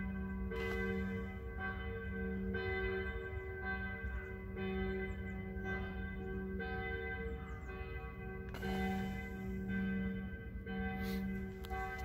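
Church bells ringing, a fresh stroke about once a second, over a steady low rumble.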